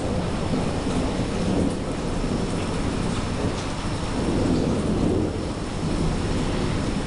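Rain falling steadily through a thunderstorm, over a low, continuous rumble of thunder.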